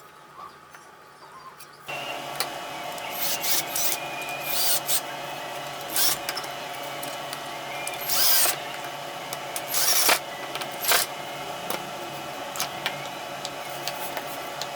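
A power tool switches on about two seconds in and runs steadily, with several short, louder bursts as it works into the material.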